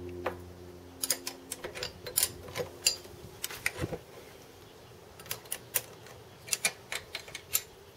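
A small metal lathe is switched off and its steady hum dies away about a second in. A series of sharp metallic clicks and taps follows as the chuck and carriage are handled.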